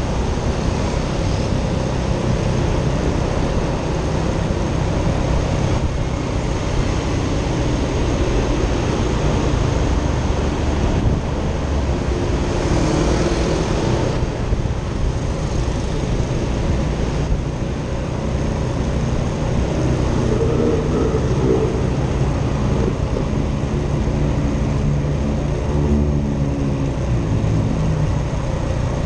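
Motorcycle engine running at low road speed among traffic, under a steady low rumble of wind on the microphone. An engine note comes through more clearly for several seconds toward the end.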